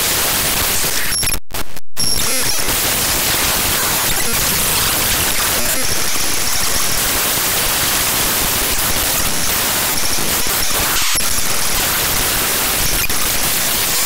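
SpeedFan program data played back as raw unsigned 8-bit audio: loud, harsh, dense digital noise like static. It cuts out briefly twice about a second and a half in.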